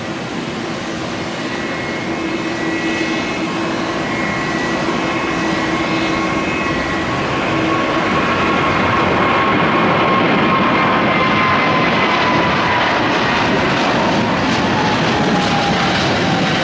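Boeing 777 jet engines at takeoff power: a loud rushing noise with a high whine, growing louder through the first half. In the second half the whine slowly falls in pitch as the airliner passes and climbs away.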